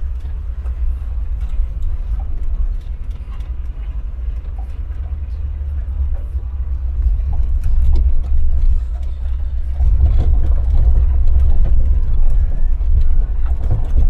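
Volkswagen Kombi van driving: a steady low rumble of engine and road noise that grows louder about ten seconds in.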